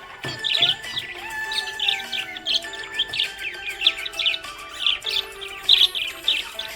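Budgerigars chirping, a rapid run of many short chirps each second, over background music with held notes.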